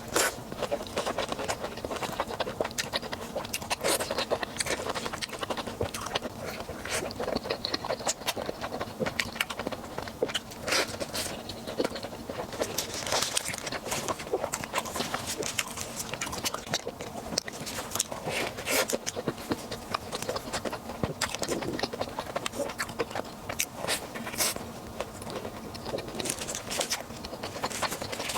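Close-miked eating sounds: wet chewing and biting with many short, sharp clicks and crackles.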